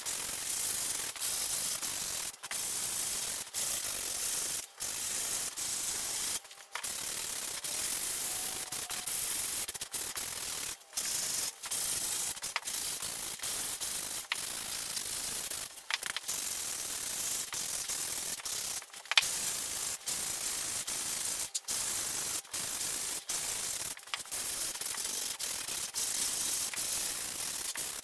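Sandpaper on a hand sanding block rubbing over a blue craft-foam hat block: a steady hissing scrape, broken by brief pauses every second or two.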